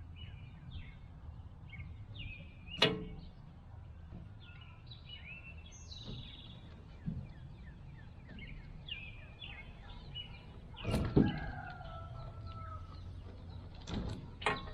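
Plastic wire-harness connectors on a pellet grill's control board being pulled apart: a few sharp clicks and knocks, the loudest about three seconds in and about eleven seconds in, with another pair near the end. Songbirds chirp steadily in the background.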